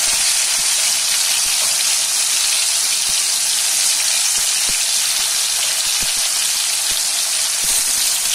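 Boiled bitter gourd slices deep-frying in hot oil in an iron kadai on high flame: a steady, loud sizzle with a few faint pops.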